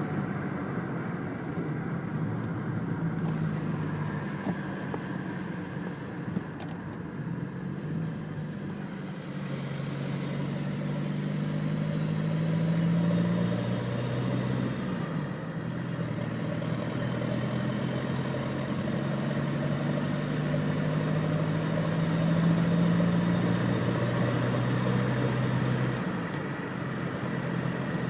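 Volkswagen 1.9 TDI (BEW) diesel engine with an open downpipe and stock turbo running, the turbo whistle sounding as a thin high tone over the diesel. The whistle climbs slowly, drops sharply about fifteen seconds in, climbs again and drops once more near the end.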